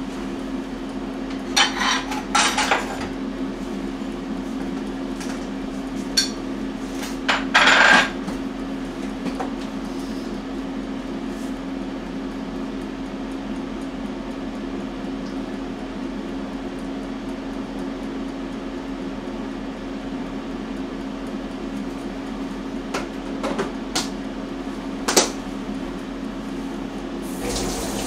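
Dishes and utensils clatter now and then over a steady low hum, with the loudest clatter about eight seconds in.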